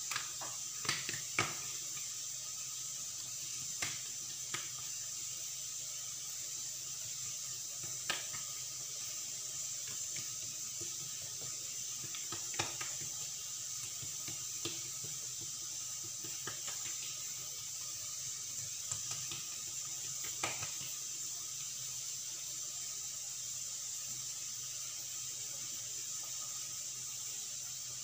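Scattered light taps and knocks of hands working thin msemen dough on a granite countertop, a few close together at first and then single ones spread out, over a steady hiss.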